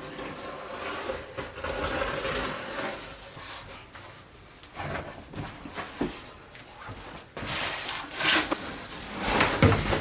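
Cardboard shipping box being opened by hand: flaps and packing rustling and scraping, with several knocks and louder scrapes near the end.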